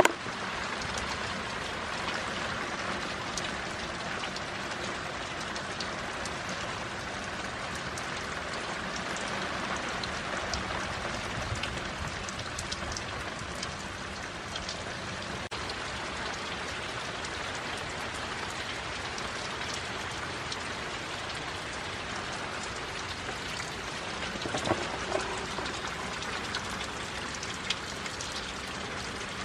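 Steady rain falling, with many small drops ticking on surfaces. About 25 seconds in come a couple of brief, slightly louder knocks.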